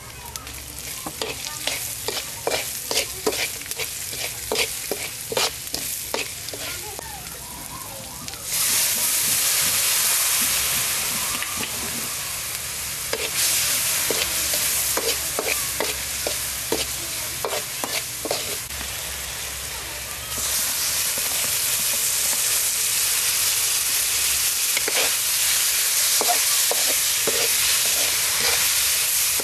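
A metal spatula clinks and scrapes against a steel wok as aromatics are stir-fried, with many sharp ticks in the first few seconds. From about a third of the way in, a loud steady sizzle takes over, louder again about two-thirds through, as snails are stir-fried with lemongrass and chili.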